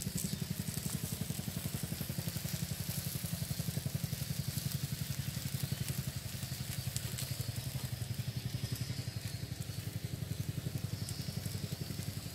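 An engine running steadily at idle with an even low pulse, over a faint crackling sizzle of fish and vegetables cooking on foil on a gas grill.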